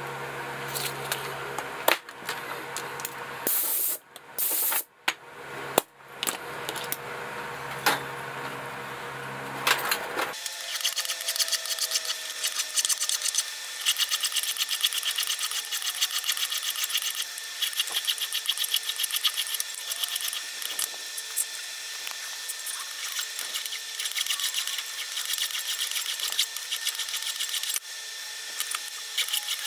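Quick, repeated rasping strokes of a hand-held abrasive worked across the steel blade of a flathead screwdriver, starting about a third of the way in and going on steadily. Before that, a steady hum with scattered handling clicks, broken off abruptly a few times.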